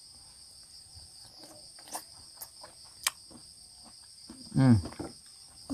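Crickets chirring steadily in a high-pitched drone. A few sharp clicks come in the middle, and a short voice sound comes near the end.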